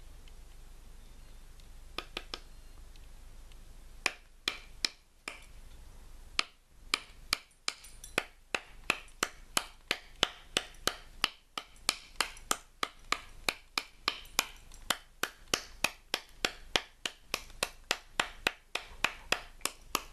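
Mora Bushcraft Force knife carving a wooden stick in quick repeated strokes, each a short sharp scrape, about two to three a second. It starts about four seconds in, after three quick clicks near two seconds. The blade is raising thin shavings to make a feather stick for fire-lighting.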